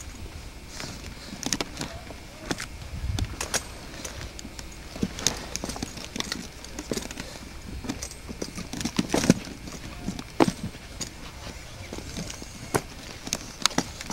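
Footsteps scrambling over loose rock boulders: irregular clicks, knocks and scrapes of shoes and stones on rock, some sharper and louder than others, with handling bumps from the handheld camcorder.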